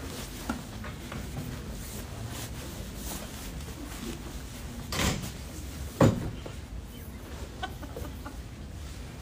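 People settling in a small, crowded room: shuffling and movement noises with small clicks, a short rustling burst about five seconds in and a sharp thump a second after it.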